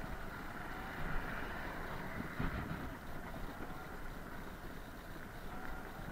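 Riding noise from an electric hub-drive FAT MAX scooter rolling along asphalt: wind buffeting the microphone over a steady tyre rumble. There are brief knocks about a second in and again about two and a half seconds in.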